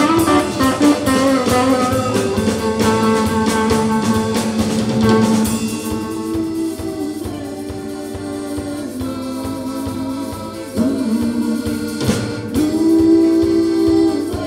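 Live folk-rock band music with electric guitar and electric bass; a dense instrumental passage for about the first five seconds, then the band thins out under two voices singing long held notes.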